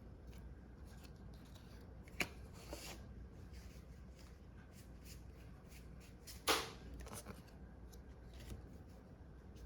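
Pokémon trading cards being handled and slid over one another: faint rustling, with a short sharp swipe about two seconds in and a louder one about six and a half seconds in.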